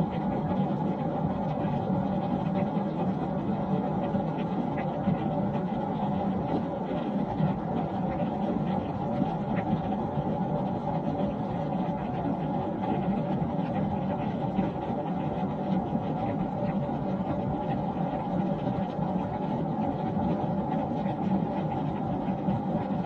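Steady rain falling on a wooden deck: an even rush of drops with fine scattered ticks, unchanging throughout.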